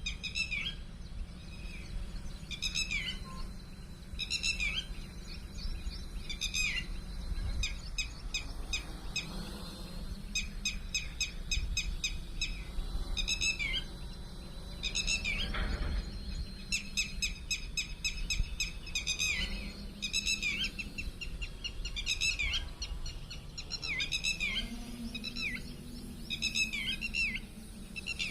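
Birds calling over and over: short, downward-sliding chirps alternating with rapid trilled runs, over a steady low rumble.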